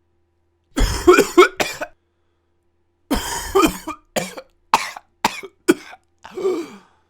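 A person coughing in separate fits with silent gaps between them. First comes a cluster of three quick coughs about a second in, then a longer cough around three seconds followed by four short single coughs, and another cough near the end.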